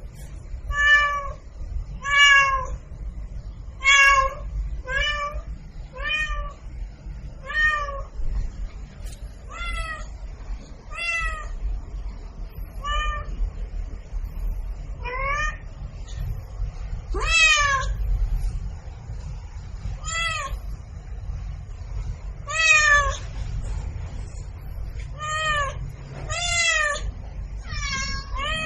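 Domestic cat meowing over and over, about seventeen short calls spaced every second or two, some rising in pitch, over a low steady rumble.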